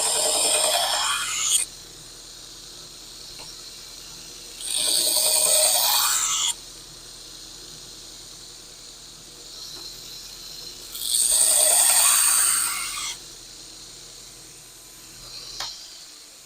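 Steel knife blank held in a jig and ground against a belt sander in three passes of about two seconds each, cutting the edge bevel. The sander's motor hum runs underneath and stops with a click near the end.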